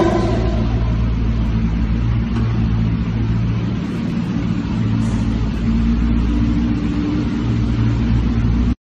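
A car engine idling with a steady low rumble that cuts off suddenly near the end.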